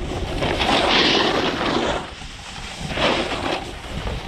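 Snowboard sliding over snow, with two swells of hissing scrape as the board carves, the first about half a second in and the second around three seconds in, over a steady low wind rumble on the microphone.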